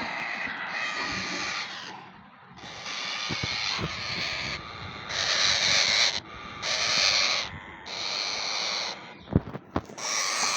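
Baby Indian ringneck parrot making repeated raspy hissing calls, about six of them, each roughly a second long, with a couple of sharp clicks near the end.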